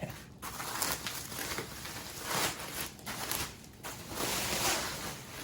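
Plastic packaging and bubble wrap rustling and crinkling as wrapped chair parts are handled, in several uneven bursts.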